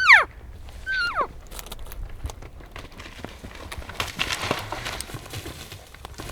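Two falling, whining elk cow mews in the first second and a half, typical of a cow call after a bowshot on a Roosevelt elk bull, followed by crackling, snapping and thuds of movement through brush.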